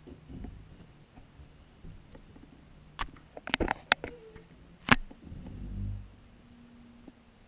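A run of sharp knocks and bangs about three to five seconds in, the loudest just before five seconds, as trash bags and bins are thrown and emptied into a rear-loading garbage truck's hopper. A short low rumble follows. Heard muffled from inside a car behind the truck.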